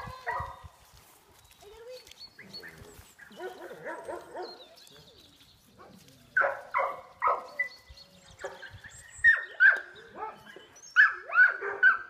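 Dogs barking in short repeated barks, sparse and faint at first, then loud, quick series from about six seconds in.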